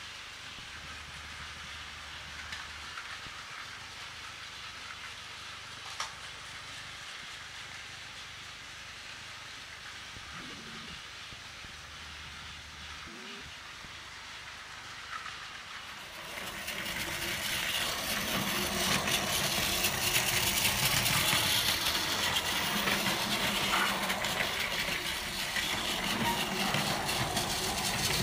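Battery-powered Plarail toy train running on plastic track, its small motor whirring and wheels rattling. The sound gets clearly louder about halfway through.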